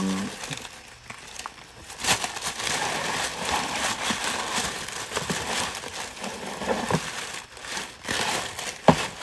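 Packaging crinkling and rustling as items are rummaged through in an opened shipping box, with a sharp tap about two seconds in and another near the end.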